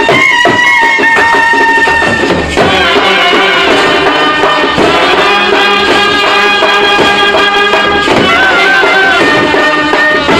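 Indian street brass band playing a tune at close range, with trumpets and a clarinet carrying the melody in loud held notes. A new phrase starts about two and a half seconds in.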